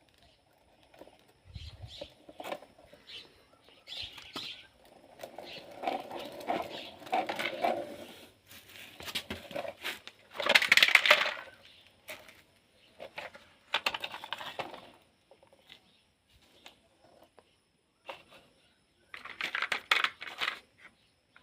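Small hard plastic toys being handled and moved about: irregular clicks, clatters and short rattling bursts. The loudest rattle comes about ten to twelve seconds in.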